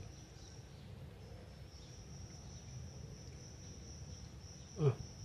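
Steady high-pitched insect trill that drops out briefly about a second in, over a faint background hiss. A brief low sound comes near the end.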